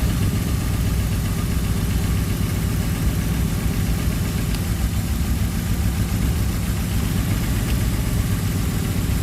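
BMW M50 straight-six engine idling steadily, an engine being checked for a misfiring cylinder.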